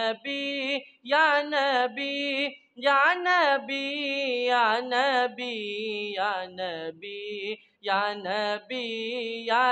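A boy's solo voice singing a naat in long, ornamented phrases, the pitch bending and wavering on held notes, with short breaks for breath between phrases.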